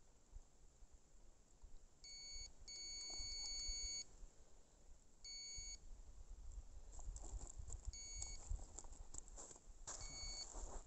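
Electronic carp bite alarm beeping, signalling line moving through it. There are five beeps of uneven length, the second held for about a second, and faint rustling and clicks of handling in the later part.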